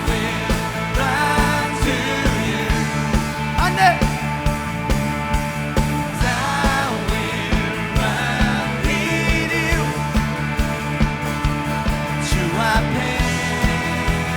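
Live rock band playing an instrumental passage: drums keeping a quick steady beat, bass and electric guitar, with a melodic line bending up and down above them.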